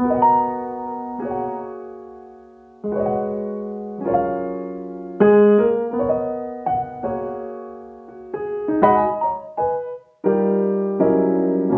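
Gentle solo piano music: chords struck one after another and left to ring and fade, with a short break just before the ten-second mark.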